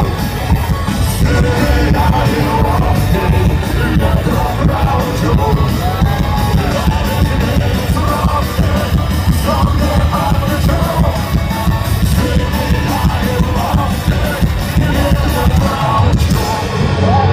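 Punk rock band playing live in a large arena, with a singer's yelled vocals over loud, driving band music.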